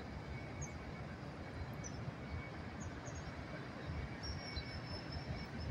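Street traffic rumble, low and steady, with a few faint high chirps over it.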